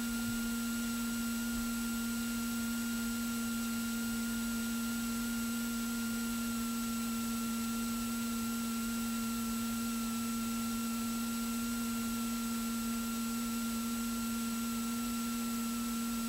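Steady electrical hum with fainter higher whines over a hiss, unchanging throughout, on a light aircraft's cockpit intercom audio during taxi.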